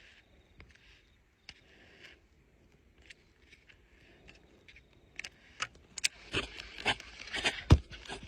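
Handling of fishing gear on a kayak: scattered light clicks, then a run of knocks and clatter from about six seconds in, with one heavy thump near the end.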